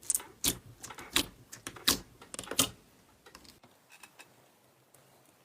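Slime being pressed and poked, giving a run of sharp clicking pops, about seven in the first three seconds, then a few faint ones.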